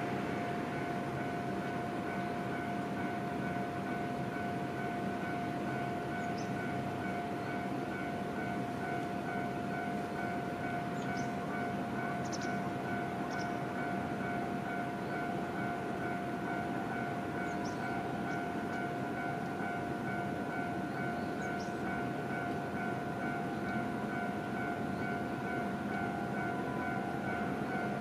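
Japanese level-crossing warning bell ringing steadily, a constant high two-tone electronic chime, over a low rumble of road traffic, with a few short bird chirps. The crossing is down for an approaching Gakunan Railway train.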